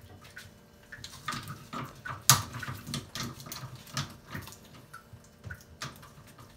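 Irregular metal clicks, knocks and scrapes of a hand-turned angle-stop puller being worked on a copper water-pipe stub, with the sharpest knock about two seconds in.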